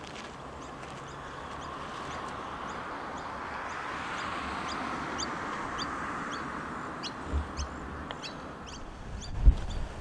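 Outdoor wind noise, a steady rushing that swells through the middle, with a bird's short high chirps repeating about twice a second. A couple of low thumps near the end, the second the loudest sound.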